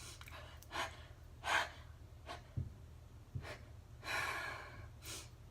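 A person's sharp, breathy in-breaths, about six of them, building up to a sneeze that never comes: a sneeze that is held back and fizzles out.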